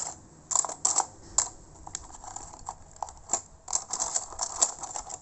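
Toshiba Satellite C640 laptop's keys and touchpad buttons clicking irregularly in small clusters, as the laptop is being shut down.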